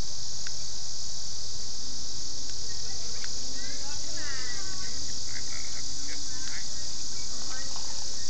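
Crickets trilling in a dense, steady evening chorus.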